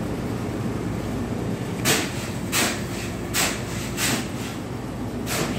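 Footsteps scuffing on a concrete floor: five short scrapes at walking pace, about two-thirds of a second apart, over a steady low background hum.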